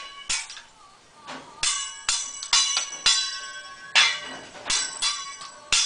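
Hibachi chef's metal utensils clanging together and against the steel griddle in a quick, uneven series of about a dozen strikes, each one ringing briefly.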